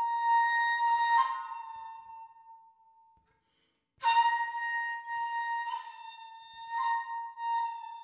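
Shakuhachi, the Japanese end-blown bamboo flute, playing solo: a long held note that fades away, a short pause, then a new phrase that steps between several notes.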